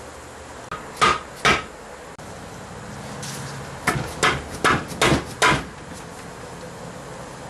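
Red mallet tapping the transfer drive gear and output shaft assemblies down into the aluminium case of an F4A42 transaxle to seat them. There are two sharp knocks, a pause, then a quicker run of five knocks.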